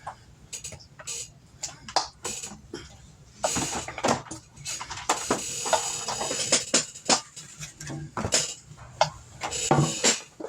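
Wooden spoon mixing chicken pieces in a bowl of wet marinade: irregular knocks and clatters.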